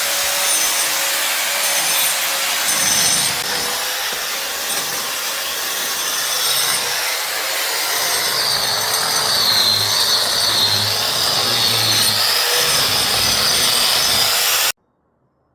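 Saw cutting through wooden formwork boards, a continuous rough rasping noise that stops abruptly near the end.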